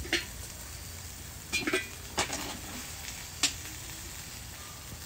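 Italian sausages sizzling over charcoal on a kettle grill: a steady low hiss with several sharp clicks spread through it.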